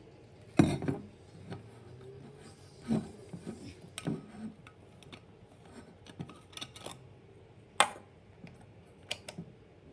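A water bottle being handled and set down on a tabletop: a series of separate knocks and clicks, the loudest just after the start, another sharp click near eight seconds in, and a quick double click near the end.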